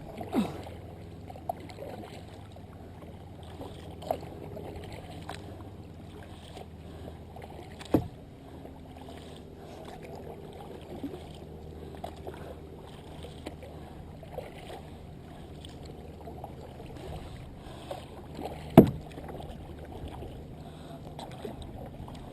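Muffled water noise from kayak paddling, with occasional sharp knocks, likely the paddle against the hull: two stand out, about 8 seconds in and near the end.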